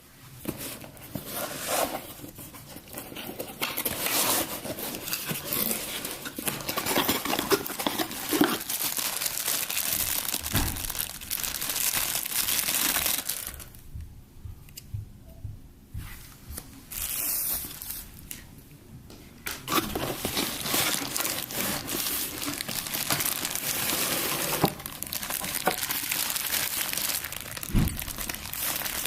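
Tripod packaging being handled and opened: plastic wrapping crinkling and rustling, with some tearing, and a quieter pause about halfway through.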